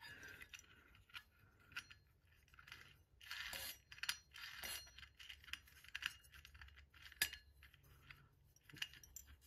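Faint, scattered clicks and clinks of small metal parts with short scrapes, as the pull-chain switch cap and fittings of a ceiling-fan light kit are handled.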